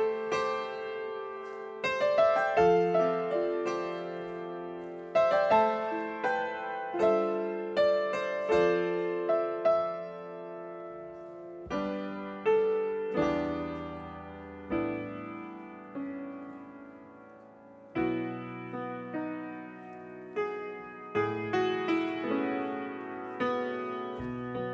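Slow, gentle solo piano music: single notes and chords struck about once a second and left to die away.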